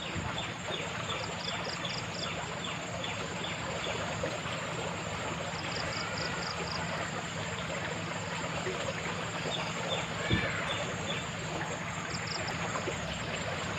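Steady rush of running water, with small creatures chirping in short, rapid pulse groups every few seconds and a faint single knock about ten seconds in.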